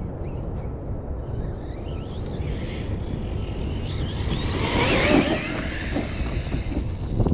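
Redcat Kaiju RC truck's brushless electric motor whining as it is driven hard, the pitch gliding up and down with the throttle, loudest about five seconds in, over a steady low rumble.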